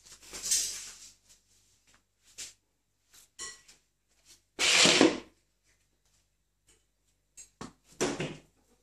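A cat batting and chasing a small ball across a tiled floor: scuffling noises and knocks in three bursts, the loudest about five seconds in.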